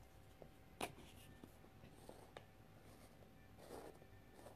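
Near silence with a few faint taps and a brief soft scrape near the end as chalk paste supplies are handled.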